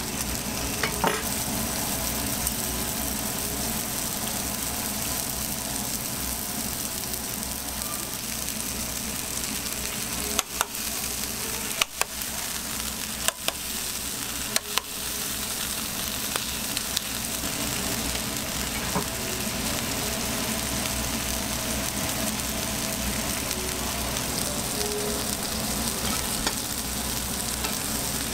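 Beef burger patties sizzling steadily on a hot flat-top griddle, with a few sharp clicks of a spatula or tongs against the griddle about a second in and again in a short cluster around the middle.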